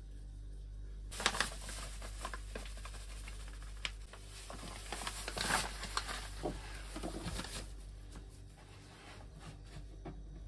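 Plastic flour bag crinkling and rustling as it is handled over the board, a dense run of irregular crackles starting about a second in and dying away after about seven seconds.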